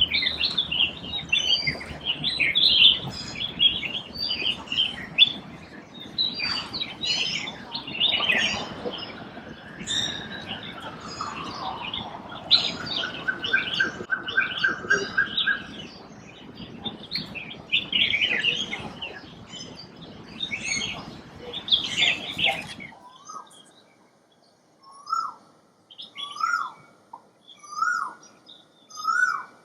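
A busy chorus of bird chirps and calls, with a rapid trill in the middle. After an abrupt change near the end, an Asian koel gives its repeated "ko-el" call, the notes coming about every second and a half.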